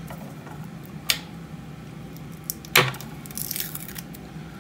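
Garlic being peeled with a knife on a glass chopping board: two sharp knocks of the knife on the glass, about a second in and just before three seconds, the second the louder, followed by a brief papery rustle of the garlic skin coming away.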